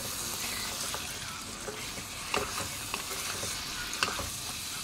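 Goat meat pieces sizzling in hot oil with spices in a frying pan while a spatula stirs them, with a few sharp scrapes and knocks of the spatula against the pan. This is the meat being fried down with turmeric and chilli powder.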